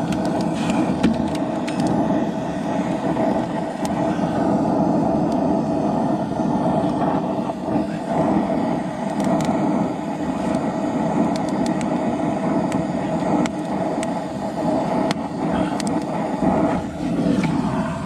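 Oxy-fuel torch flame burning steadily as it heats a rusted, seized latch pin to free it, with scattered small clicks over the steady noise.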